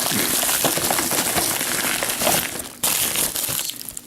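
Plastic packaging crinkling and rustling as it is handled and unwrapped, in a continuous rustle with a short break about three seconds in.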